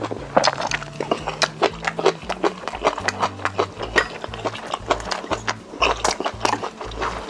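Close-miked chewing and wet mouth sounds of someone eating, many quick irregular smacks and clicks, over background music with a steady low bass line.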